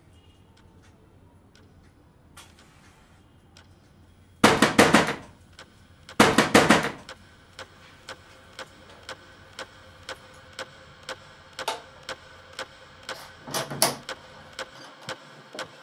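Two bursts of loud knocking on a door, about a second and a half apart, followed by steady ticking about twice a second over a faint held tone.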